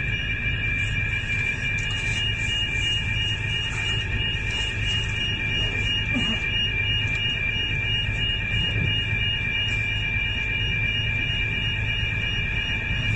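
A ship's electronic alarm sounds a steady high-pitched tone without a break, over a continuous low rumble from the vessel.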